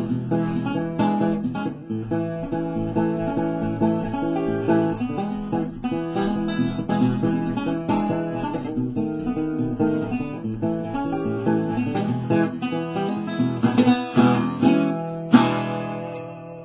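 Single-cone resonator guitar fingerpicked in a blues instrumental. A louder final chord comes near the end and rings out, fading.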